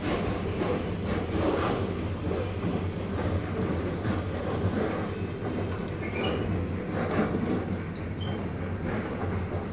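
Passenger train running along the track, heard from aboard: a steady low rumble with irregular knocks from the wheels and carriage, and a brief high squeal about six seconds in.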